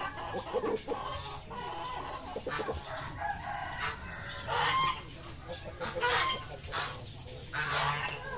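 Chickens calling: a run of about five short squawking clucks, spaced a second or two apart.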